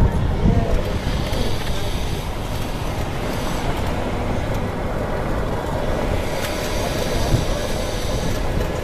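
Steady rumble of a vehicle rolling over a cobblestone street, tyre and road noise with a couple of brief jolts.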